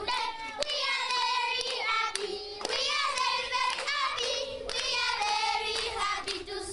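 A group of schoolchildren singing a song together, with hand claps through it.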